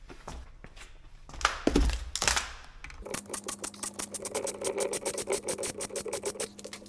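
A few knocks of metal parts being handled, then a small motor running for about four seconds with a fast, even clicking, about seven clicks a second, over a steady hum.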